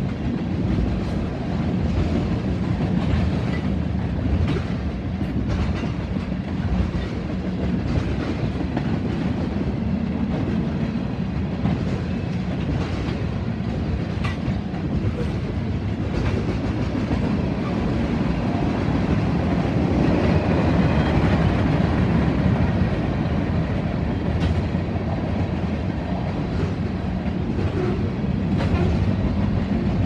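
Freight train cars rolling past at a grade crossing: a steady rumble of steel wheels on the rails, with clacks at the rail joints.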